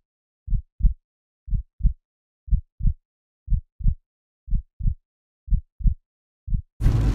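Heartbeat sound effect: deep double thumps, lub-dub, about once a second over dead silence, six pairs and a last single beat. Just before the end, in-car road noise cuts back in.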